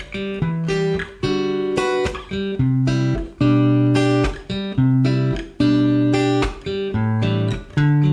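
Background music: plucked acoustic guitar playing a picked melody over bass notes.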